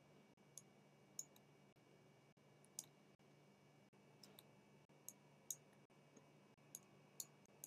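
Faint computer mouse clicks, about ten at irregular intervals, over a low steady hum.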